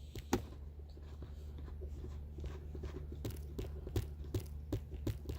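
Scattered light clicks and taps of a 1997 Lexus SC400's plastic center-console trim being handled and popped down by hand, over a steady low hum.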